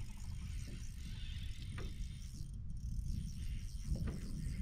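Low, steady rumble of wind buffeting the microphone on an open boat, with a few faint, short knocks.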